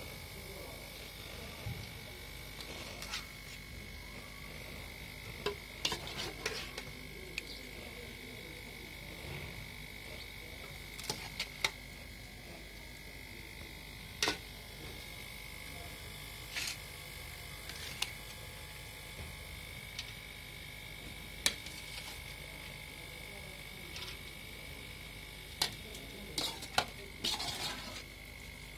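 Utensils clinking and scraping against steel cooking pots as rice and potato masala are spooned in layers for biryani: scattered sharp clinks every few seconds, with a quick cluster near the end. A steady high thin whine runs underneath.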